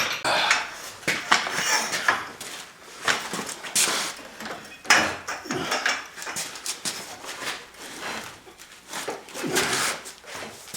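Irregular metallic clinks and clanks of a breaker bar and socket working on a seized control-arm bolt that will not come loose.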